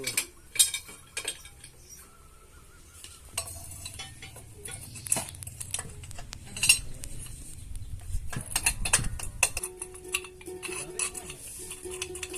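Irregular metallic clinks, knocks and scraping of tools working on a steel motorcycle muffler. About ten seconds in, a steady hum joins.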